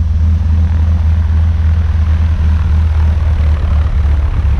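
Single-engine propeller plane's engine idling on the ground, a steady low drone.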